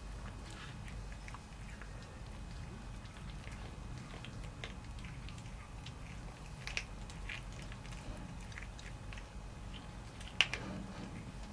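A cat chewing and crunching on a small rodent it has caught, with irregular wet crunches and small clicks. A sharper crack comes about ten seconds in.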